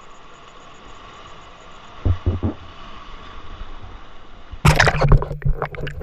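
Sea waves washing and sloshing over shoreline rocks, with a few low thumps about two seconds in. Near the end a sudden loud splash and churning of water as the microphone goes under, leaving muffled underwater noise.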